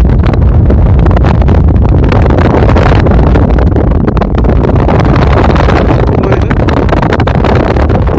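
Loud, steady wind buffeting on the camera microphone from air rushing past in paragliding flight: a deep rumble with hiss over it.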